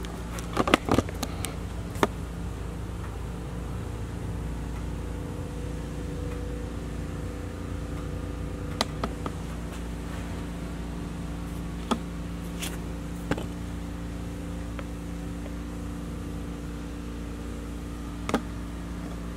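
A steady mechanical hum made of several fixed low tones, with sharp clicks and clinks scattered through it; the loudest come in a quick cluster about a second in.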